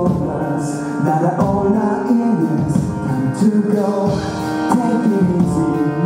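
Live rock band playing through a hall PA, with male lead vocals over electric bass, guitars and drums. Cymbal hits come about once a second.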